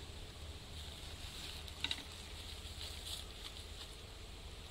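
Knife shaving wax cappings off a honeycomb frame during uncapping: a run of soft scratchy strokes, with a short sharp tick about two seconds in.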